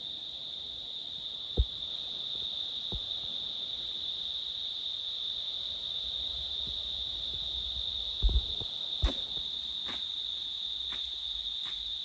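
Insects trilling: one steady, unbroken high-pitched drone, with a few dull knocks.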